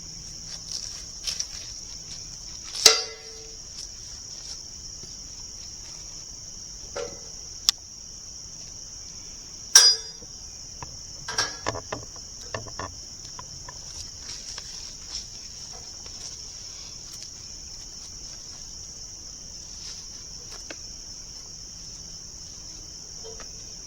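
Steady high-pitched insect chorus, with a few scattered knocks and clanks; the loudest come about three seconds in and about ten seconds in.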